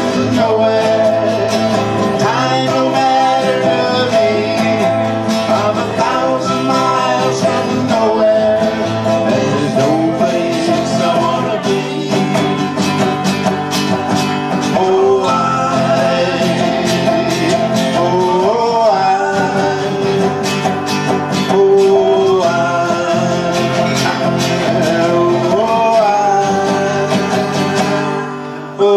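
Live acoustic country-folk music: two acoustic guitars strummed and picked, with a man singing at times.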